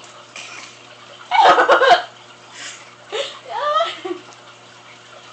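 Two short bursts of voice about two seconds apart, laughter-like, the second rising in pitch.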